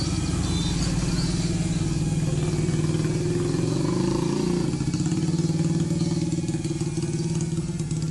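FPV drone's motors and propellers buzzing steadily, the pitch wavering briefly about four seconds in.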